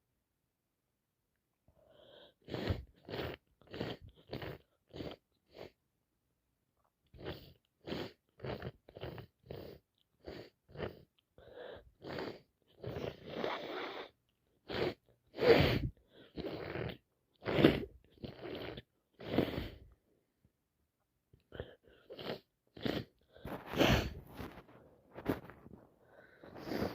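A person with a heavy head cold sneezing and sniffling in a long run of short, sharp bursts, about two a second, in three bouts with brief pauses between. A few stronger sneezes stand out in the middle and near the end.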